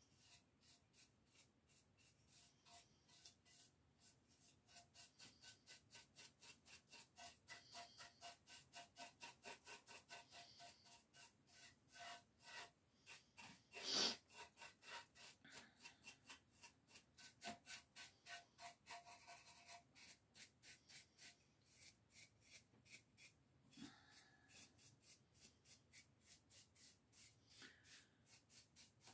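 Faint, quick brush strokes, about three a second, as a brush sweeps excess gold leaf off a gilded lamp, with one louder tap about 14 seconds in.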